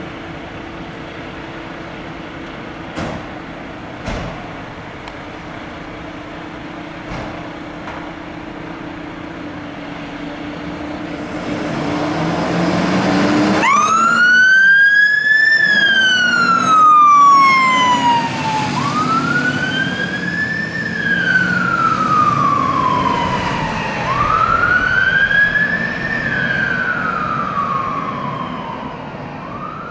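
Mercedes-Benz Atego fire engine pulling out: its diesel engine runs, with a few sharp clicks early on, and builds up about ten seconds in. Then the siren comes on suddenly and wails, each slow rise and fall lasting about five seconds, a little fainter near the end as it drives away.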